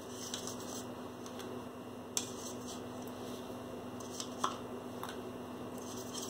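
A handful of small, sharp ticks and splats as acrylic paint is flicked from a brush onto paper, the clearest about two seconds in and again just after four seconds, over a steady low hum.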